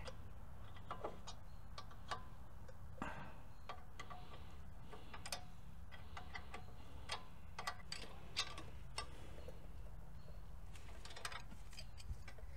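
Metal wrench clicking in scattered, irregular sharp clicks while the brake caliper bracket bolts are tightened, over a steady low hum.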